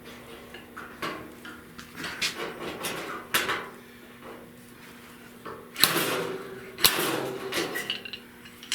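Slide hammer pulling a dent out of a steel 1970 Buick Wildcat fender: a string of irregular sharp metal knocks as the weight is slammed back, the loudest two about six and seven seconds in.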